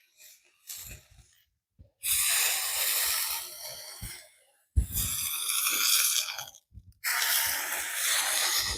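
Tomahawk steak edges searing on a very hot griddle plate: three loud bursts of sizzling, each starting suddenly and dying away over a second or two.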